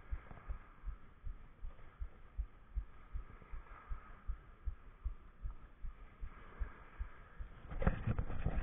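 A freshly landed false albacore beating its tail against beach pebbles, heard as soft, regular low thumps about three a second. Near the end there is a louder crunch and rustle of pebbles.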